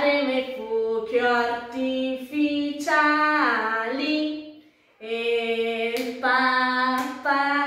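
A woman singing a children's song, in held notes with a brief break partway through. A couple of hand claps come near the end.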